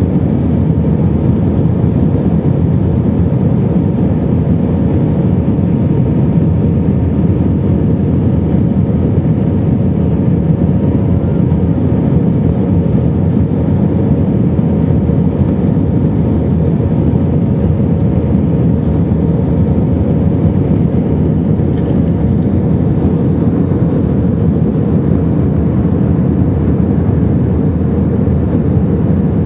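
Airbus A319 jet engines and airflow heard inside the cabin during the climb after takeoff: a steady, loud, low rumble with a faint steady hum in it.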